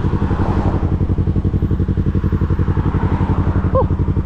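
Yamaha YZF-R3's parallel-twin engine running steadily as the bike is ridden, its exhaust pulses coming in a fast, even stream.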